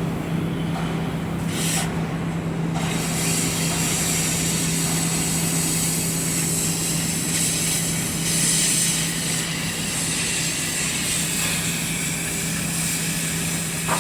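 Pfister feeder machine for burning processed waste running: a steady hum with a hiss over it that grows stronger about three seconds in.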